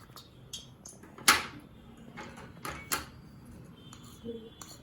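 A few light knocks and clicks of kitchen utensils against a bowl or containers while ingredients are added, the loudest about a second in.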